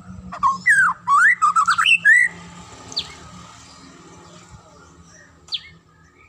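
White-rumped shama (murai batu) singing: about half a second in, a loud two-second run of quick whistled notes that swoop up and down, followed by two single sharp high notes a few seconds apart.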